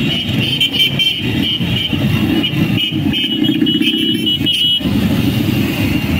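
Many motorcycle engines running as a group of bikes rides slowly past close by, with short high beeps or toots over them until a little before five seconds in.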